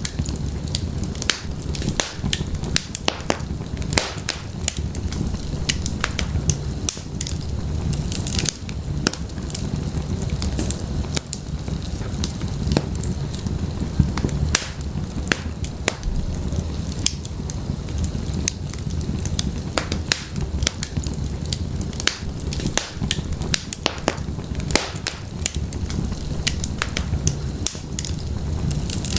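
Wood fire burning in an open fireplace: firewood crackling and popping in many irregular sharp snaps, over a steady low rush of the flames.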